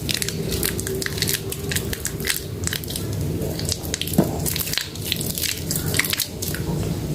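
A soaked bar of soap being squeezed and lathered by hand, giving a dense run of wet squishing and crackling clicks.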